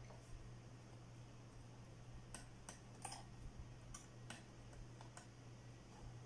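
Light clicking of a small Phillips #00 screwdriver turning a tiny screw out of a MacBook Pro's aluminium bottom case: a scattered run of faint clicks from about two seconds in, the loosened screw's threads jumping as it spins in place.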